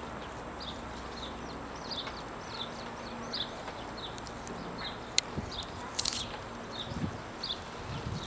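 A small bird chirping over and over, about two short high chirps a second, over a faint steady hum. A sharp click comes about five seconds in, with a brief rustle just after.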